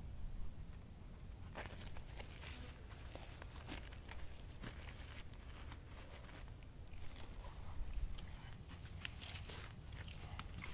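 Soft, irregular crackling and rustling, starting about one and a half seconds in, as a clump of rabbit fur is pulled apart by hand and dry leaf litter shifts under the body.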